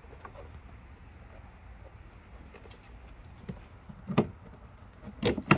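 Hands working the plastic intake cover and its fasteners in an Audi engine bay: a few knocks and clicks, the loudest cluster near the end, over a low steady rumble.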